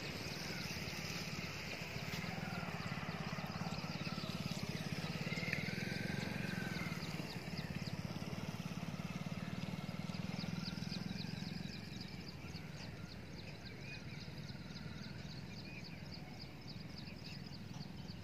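A steady low engine-like drone that eases off about twelve seconds in, with a fast run of short high chirps and a few faint whistled calls over it.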